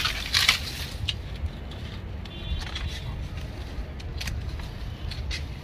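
Dry fronds of a potted areca palm being cut and pulled away, giving a few short crisp snips and rustles over a steady low rumble.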